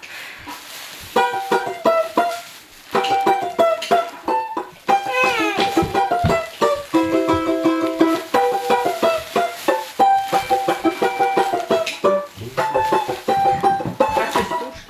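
Lively music played on a quickly plucked string instrument: a fast run of short notes that comes in about a second in.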